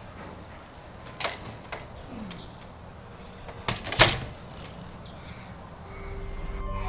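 Glass-panelled door closing: a few light clicks and a short creak, then the door shutting with a sharp latch click about four seconds in, the loudest sound. Low music begins to fade in near the end.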